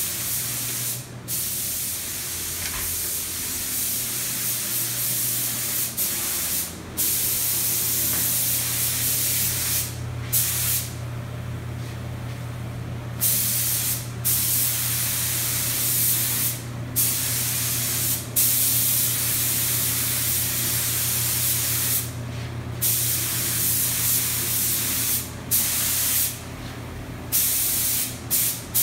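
Compressed-air spray gun spraying clear coat at high pressure: a strong hiss that stops and starts about a dozen times as the trigger is let go and pulled again, with one longer pause near the middle. A steady low hum runs underneath.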